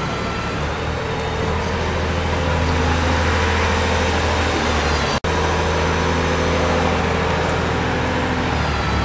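A steady low mechanical drone with an even hum, as of a running engine or machine, that cuts out for an instant about five seconds in.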